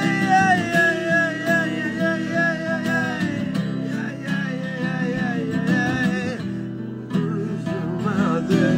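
Two acoustic guitars played together while a man sings long held notes over them.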